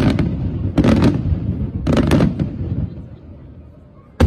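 Aerial firework shells bursting in volleys: three clusters of sharp bangs about a second apart, fading away, then another bang right at the end.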